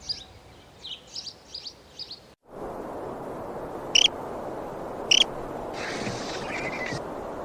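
A small bird chirping in short quick bursts, then after a cut a steady rushing background with two short, sharp high-pitched calls about a second apart.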